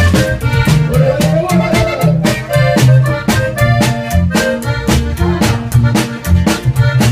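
Live norteño-style band playing: a button accordion melody over an upright bass line, with a steady driving beat.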